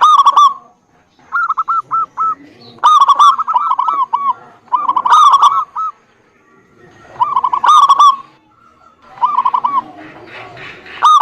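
Zebra dove (perkutut) cooing: about six phrases of quick, clipped notes, each phrase lasting about half a second to a second, with short pauses between them.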